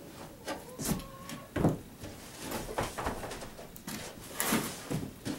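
A rigid fiberglass rear bumper cover being turned over on a wooden workbench: scraping and a string of knocks as the shell shifts against the wood.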